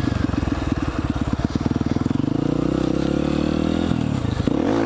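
Honda CRF150F dirt bike's single-cylinder four-stroke engine running at low revs with a lumpy, pulsing beat, then revving up slightly near the end.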